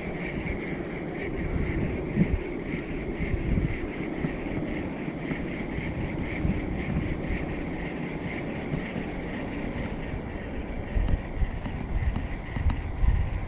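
Wind buffeting the microphone with an uneven low rumble, over a steady faint high buzz.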